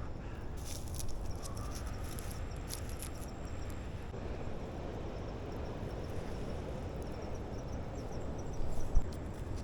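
Insects chirping in a fast, even series of high ticks over a steady low rumble. A few sharp clicks come in the first few seconds, and there is a single thump near the end.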